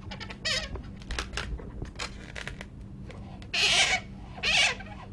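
Latex twisting balloons squeaking and rubbing as they are gripped and a marker is drawn across them, with scattered small clicks and two louder squeaks about three and a half and four and a half seconds in.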